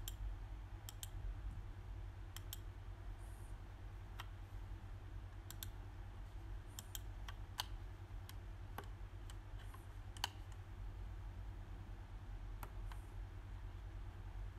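Computer mouse clicking: about a dozen single clicks at uneven intervals, some in quick pairs, over a steady low hum.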